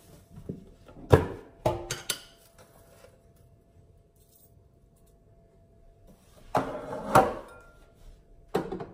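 Kitchen handling clatter as a lidded salt canister is opened and salt is spooned into a glass bowl: a few sharp clicks and knocks in the first two seconds, a quiet stretch, then a cluster of knocks and clinks as the lid goes back on and the canister is set down on the counter, with one more knock near the end.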